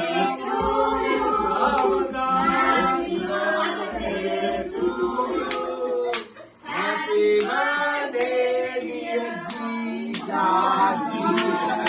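A mixed group of voices singing together without instruments, with scattered hand claps and a brief pause about six seconds in.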